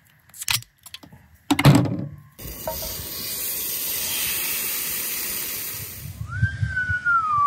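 A few knocks and clatters, then venison backstrap sizzling in a hot frying pan: a steady hiss that starts abruptly and stops about three and a half seconds later. Near the end a single whistle-like tone rises, then slowly falls.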